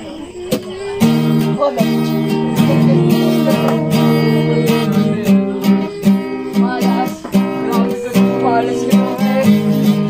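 Music led by strummed acoustic guitar, thin for the first second and then fuller, with a steady rhythm.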